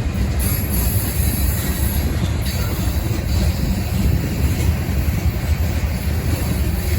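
Train passing, a steady heavy rumble of wheels on rail, with a brief burst of hiss from about half a second to two and a half seconds in.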